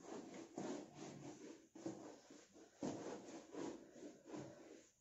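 Whiteboard duster wiping marker off a whiteboard: repeated back-and-forth rubbing strokes, about two a second, faint.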